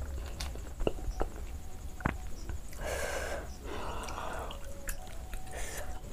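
Close-miked eating sounds: chewing, a few sharp clicks in the first two seconds, then a metal spoon scooping chicken curry and an egg onto a plate of rice.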